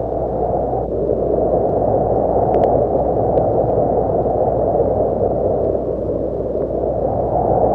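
Cold winter wind: a steady, low rush of wind that swells and eases slowly, with a few faint ticks.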